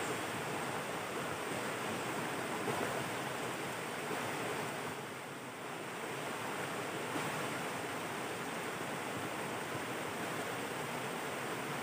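A river rushing and churning over rocks at the bank: a steady wash of running water that eases slightly about five seconds in.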